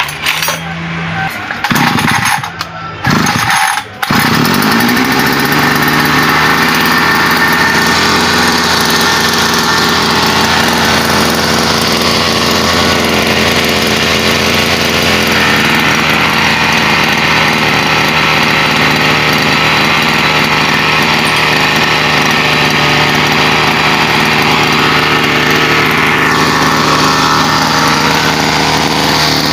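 Hyundai 51.7cc two-stroke brush cutter engine starting after a spark plug change. It is uneven for the first few seconds, catches about four seconds in, picks up speed, and then runs steadily: the new plug is firing.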